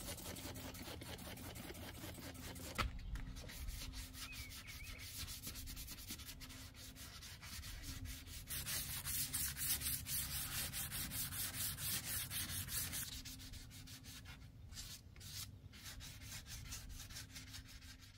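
Wet sanding a primed steel body panel with 320-grit paper on a soft pad and soapy water: quick, rhythmic rasping strokes, loudest in the middle stretch.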